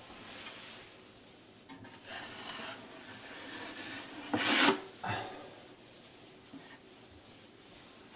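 Wide drywall knife scraping and smoothing joint compound over a taped seam: several drawn strokes, the loudest about four and a half seconds in. The mud has been overworked and is full of air bubbles.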